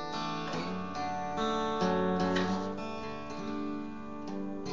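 Acoustic guitar playing strummed chords that ring on, with a new chord struck several times.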